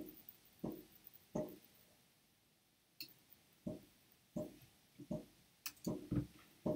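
Computer mouse clicking: about ten short, irregular clicks, with a brief quiet gap about two seconds in.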